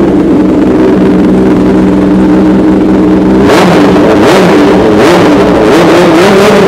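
Kawasaki Ninja ZX-10R inline-four running through a full-system Arrow aftermarket exhaust, very loud. It idles steadily, then about three and a half seconds in it is revved with a series of quick throttle blips.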